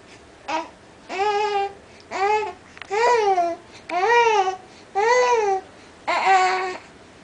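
A voice giving six short pitched cries, about one a second, each rising and then falling in pitch.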